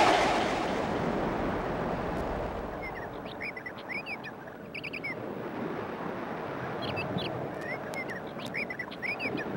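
A dense noise that fades over the first couple of seconds, then two clusters of short, high, bird-like chirps or squeaks over a steady hiss, part of a spooky sound-effects track.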